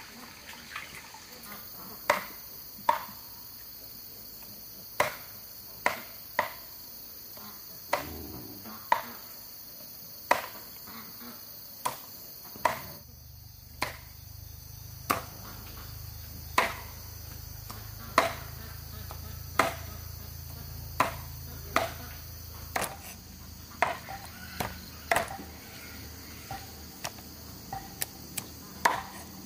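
Sharp chopping blows from a hand tool, about two dozen at an uneven pace of roughly one a second, over a steady high drone of insects. A low hum joins about halfway through.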